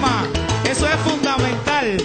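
Salsa music: a pulsing bass line under the band, with two falling pitch slides, one at the start and one near the end.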